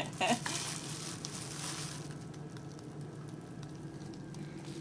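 A serving spoon scooping saucy barbecued pork and potatoes out of a plastic slow-cooker liner, with crinkling plastic and wet food noise for about the first two seconds. A low steady hum runs underneath.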